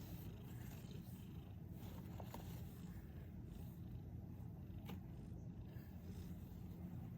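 A pet snoring softly in its sleep, a steady low rumble, with a brief sharp click about two-thirds of the way through.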